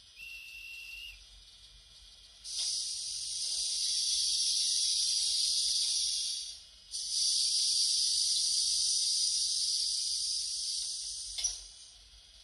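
ESU LokSound 5 sound decoder in an N-gauge Kato TGV Sud-Est model playing its station sounds: a conductor's whistle, one steady blast of about a second, then two long hisses of several seconds each with a short break between them.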